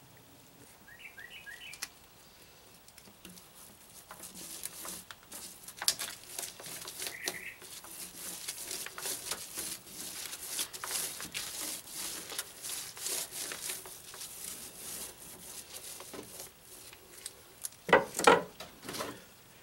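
Metal fiberglass laminating roller worked over resin-wet fiberglass cloth, a dense run of small crackles and clicks. Near the end come two loud knocks.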